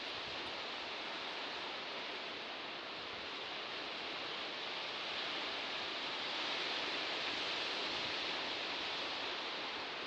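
Sea surf washing on a shore: a steady hiss of breaking and receding waves that swells a little in the second half.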